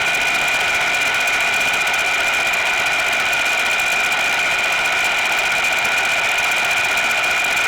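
Machine tool running steadily during metal machining: a constant high whine, with a second lower tone, over an even hiss that does not change.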